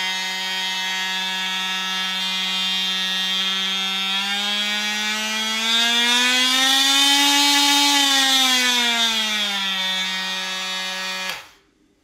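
Milwaukee M18 2626-20 cordless oscillating multi-tool with a brushed motor, running free with a blade fitted: a steady, pretty loud buzzing hum at its lowest speed. About five seconds in it speeds up and rises in pitch, eases back down around ten seconds, and shuts off near the end.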